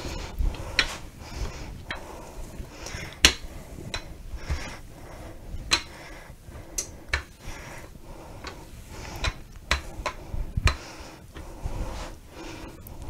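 Rolling pin worked back and forth over bread dough on a countertop: irregular clicks and knocks from the pin and hands against the counter, over a low rumble of rolling, with one sharper knock about three seconds in.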